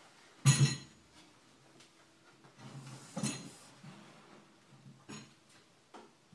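Furniture being handled: a loud double knock about half a second in, then rustling and a sharper clinking knock about three seconds in, with a few light knocks after.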